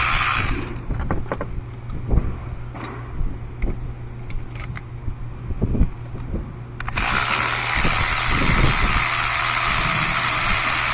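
A steady whirring hiss cuts off abruptly under a second in. It leaves a low hum and a scattering of light metallic clicks and knocks from tools and parts being handled in the engine bay. The hiss starts again just as abruptly about seven seconds in.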